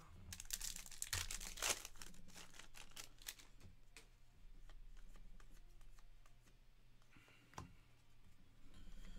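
A trading card pack wrapper being torn open and crinkled, mostly in the first two seconds, then small clicks and rustles as the cards are handled.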